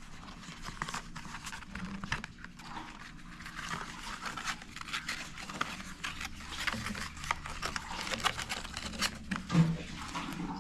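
Paper and packaging being handled: irregular rustling and light clicks as instruction leaflets are taken out of a box and looked through.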